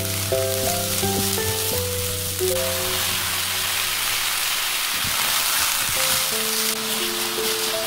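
Vegetables frying in olive oil in a pan, a sizzle that grows stronger about halfway through, under gentle background music with a melody.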